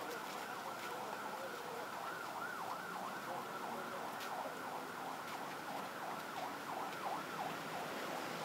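An electronic siren wailing up and down over steady street traffic noise, its sweeps quickening into a fast yelp around the middle.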